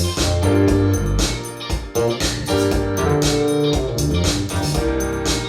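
Music with a steady beat, deep bass and keyboard chords, played through a pair of SABA 1300 Professional vintage hi-fi speakers.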